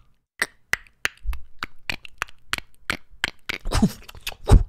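A quick, irregular string of sharp clicks, about four or five a second, close to the microphone. Three deeper thumps are mixed in, the loudest just before the end.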